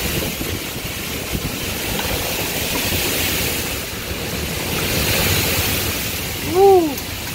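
Severe storm wind rushing through trees and buffeting the microphone in heavy gusts, swelling and easing. A person exclaims "ooh" near the end.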